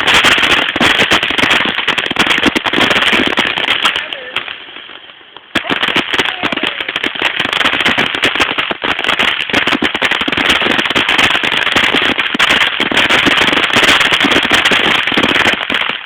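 A string of firecrackers going off in a dense, rapid crackle of bangs. It dies away about four seconds in, then a second volley starts suddenly a second later and crackles on until it stops abruptly near the end.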